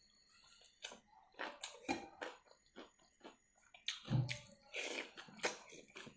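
A person chewing and eating food with wet, smacking mouth sounds and irregular short clicks, with a louder low thump about four seconds in.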